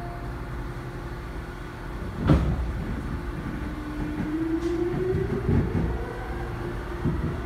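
Seoul Line 5 subway train heard from inside the car as it pulls out of a station: a single loud clunk about two seconds in, then the traction motors' whine rising in pitch as the train accelerates, over a low running rumble with scattered wheel clatter.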